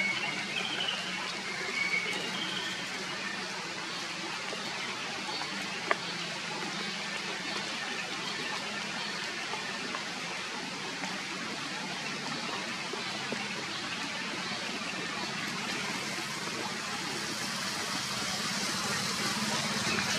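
Steady heavy rain falling on forest foliage, an even hiss throughout, with a single sharp click about six seconds in.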